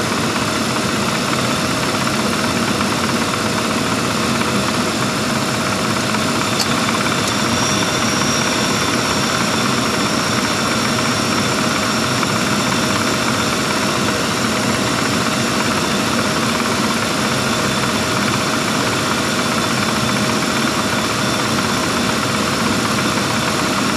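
1995 Lincoln Town Car's 4.6-litre V8 idling steadily with the air conditioning running. A short click comes about six and a half seconds in, and a thin high whine runs from just after it.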